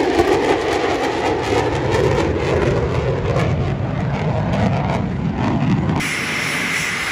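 Fighter jet engine noise at high power as the jet flies past, with a crackling edge. About six seconds in it cuts off abruptly to quieter, steadier engine noise.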